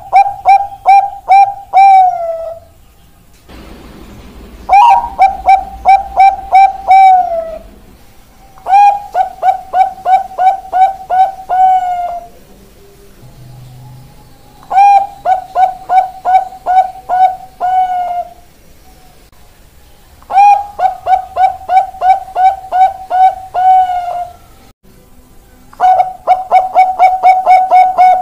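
Zebra dove (Bangkok-bred perkutut) singing its cooing song. It gives about six phrases a few seconds apart, each a quick run of repeated notes ending in a longer falling note.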